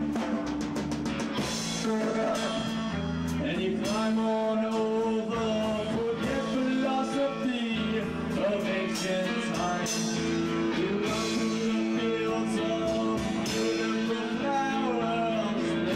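Rock band playing live: electric guitar over bass and drum kit, with regular drum and cymbal strikes.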